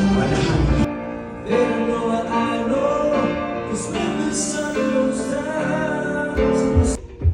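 Background music with singing; the music changes abruptly about a second in.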